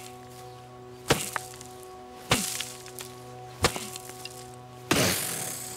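A wooden stick striking a rotting log, four sharp whacks about a second and a quarter apart. The last, about five seconds in, is the loudest and has a longer, noisier tail.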